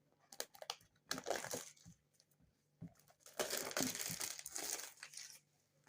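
Packaging crinkling and tearing as a product box is opened, with scattered small clicks and handling. There is a short rustle about a second in, and a longer one from about three to five seconds.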